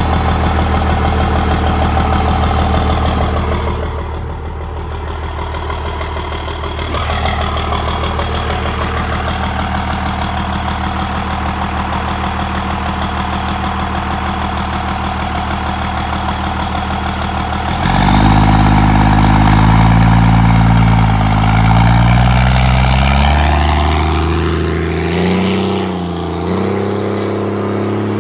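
Dodge pickup's 12-valve Cummins straight-six diesel through a straight-pipe exhaust, running steadily. About two-thirds of the way in it gets suddenly louder as the truck pulls away, its pitch rising and falling several times, then evening out.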